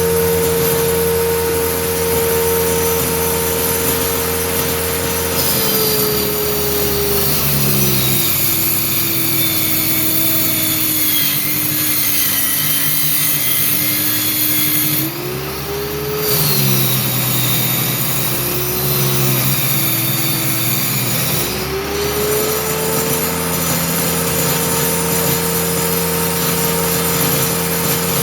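Homemade circular saw running at full speed, its motor tone sagging in pitch twice as the blade is loaded cutting through a speaker-box panel, then climbing back to its free-running pitch.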